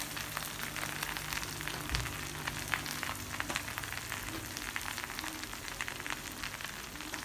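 Chicken sizzling on a hot cooking surface: a steady hiss full of quick crackles and pops, with a low knock about two seconds in.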